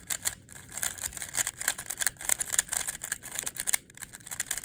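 Rubik's cube being turned by hand: a rapid, irregular run of plastic clicks and rattles from the layers snapping round, several a second.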